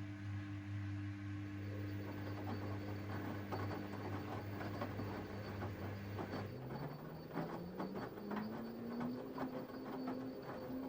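Washing machine running with a steady motor hum and a rattle of light knocks from the drum. About six and a half seconds in, the motor's whine climbs in pitch over a couple of seconds as the drum speeds up, then holds.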